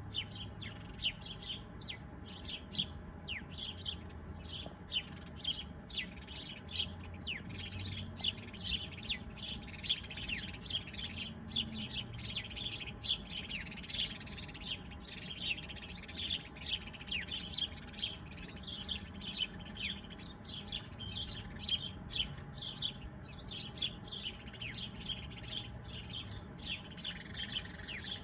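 A chorus of many small birds chirping: dense, rapid, short chirps that each sweep downward in pitch, overlapping continuously.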